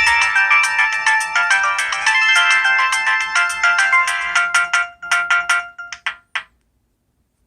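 A default ringtone on an LG Rhythm AX585 cell phone playing: a fast electronic melody of many short notes that thins out into a few separate notes and stops about six seconds in.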